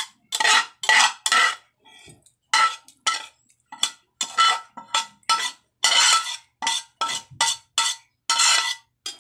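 A utensil scraping cooked fish and onions out of a metal frying pan into a glass bowl, about two quick strokes a second with a short pause near two seconds in. Each stroke carries a brief metallic ring from the pan.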